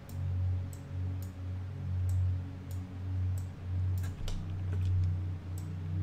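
Computer mouse clicking, about two sharp clicks a second, some in quick pairs, as sculpt strokes are made. A low hum swells and fades underneath.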